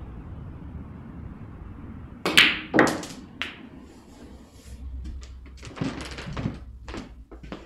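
A snooker cue tip strikes the cue ball with a sharp click a little over two seconds in. About half a second later comes a second click as the cue ball hits an object ball, then a softer knock. Several lighter knocks and taps follow near the end, over a steady low hum.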